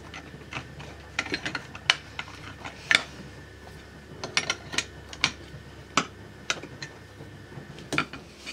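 Irregular sharp metallic clicks and clinks as hand tools and gearbox parts knock against the open crankcase of a Derbi Euro 3 moped engine during reassembly.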